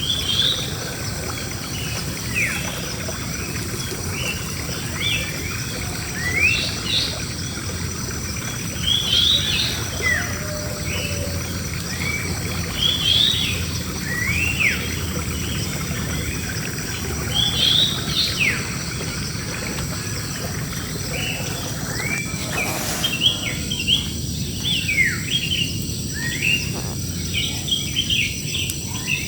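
A flock of birds in a big tree chirping and calling, many short rising and falling chirps overlapping throughout, over a steady low background rumble.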